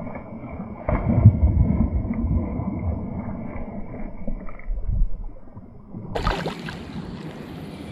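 Splashing water as a hooked pike leaps and thrashes at the surface, with a loud splash about a second in.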